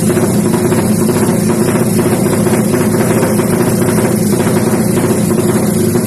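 Suzuki Satria FU motorcycle's single-cylinder four-stroke engine, bored to 200cc and fuel-injected, running steadily at a constant speed without revving.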